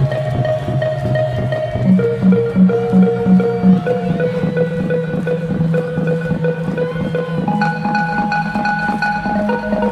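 Background music: held notes over a quick, even ticking rhythm. A pulsing note repeats about three times a second a couple of seconds in, and the notes change again near the end.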